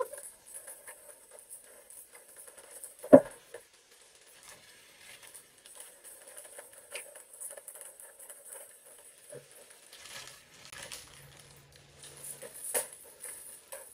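Potato chips being crunched and munched from plates, with scattered small crackles and a plastic chip packet crinkling. A single sharp knock, the loudest sound, about three seconds in.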